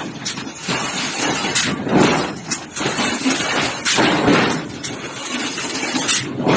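Heavy thuds about every two seconds from open-die forging of a large steel workpiece, over continuous loud forge-shop noise.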